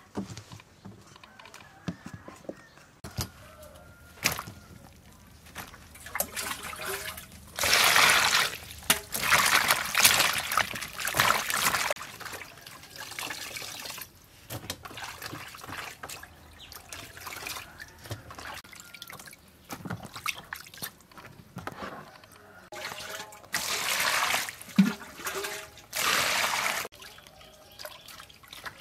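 Water sloshing, splashing and dripping in a plastic bowl as raw pork intestines are washed by hand, coming in several loud bursts with quieter dripping between.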